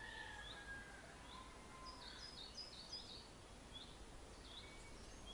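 Faint birdsong: many short high chirps repeated throughout, with a couple of longer, slightly falling whistled notes in the first two seconds, over a faint low background rumble.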